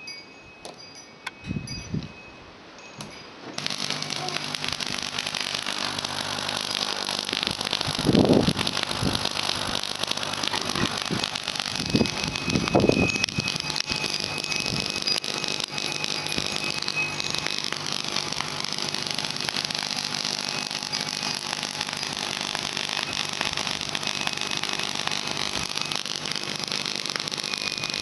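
Tesla coil switched on about three and a half seconds in, then running with a steady hissing buzz. A few dull knocks of handling come through in the middle.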